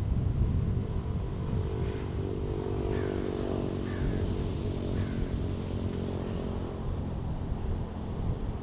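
A motor vehicle's engine hum passing by over a steady low outdoor rumble, most prominent about two to five seconds in. A few short bird calls sound in the middle.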